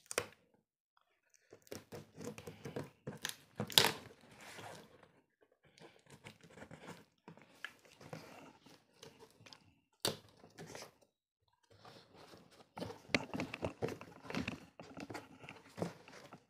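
Cardboard carton being opened by hand: packing tape torn and cardboard flaps scraped and rustled in irregular bursts, with a few sharp clicks.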